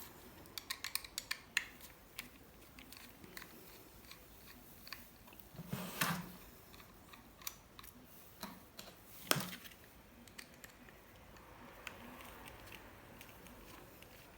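Small clicks and taps of a laptop hard drive and its plastic and metal parts being handled. A quick run of clicks comes in the first two seconds, then two louder knocks come around the middle.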